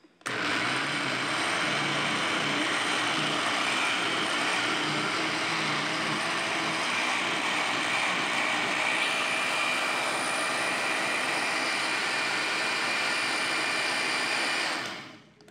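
Countertop blender motor running steadily at speed, blending aloe vera gel and honey into a frothy liquid, then stopping near the end.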